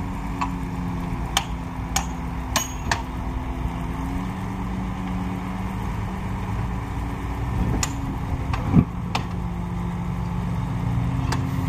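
Diesel engine of heavy earthmoving machinery running steadily, with a series of sharp knocks scattered through it; the strongest comes about nine seconds in.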